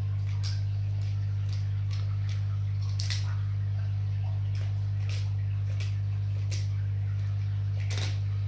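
A Chinese alligator crunching a crayfish in its jaws: irregular sharp cracks and clicks, about one or two a second, over a steady low hum.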